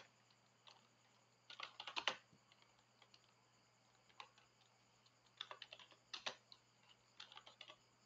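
Computer keyboard being typed on: faint, quick key clicks in short uneven bursts, with pauses of a second or more between words.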